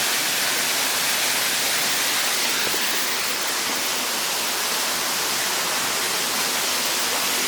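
Small waterfall rushing steadily: an even, unbroken hiss of falling water.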